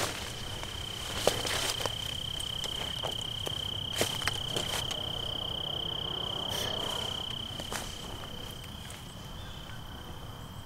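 An insect trilling steadily on one high pitch, with footsteps and rustling through soybean plants and dry stalks, the sharpest snaps about a second in and at four seconds.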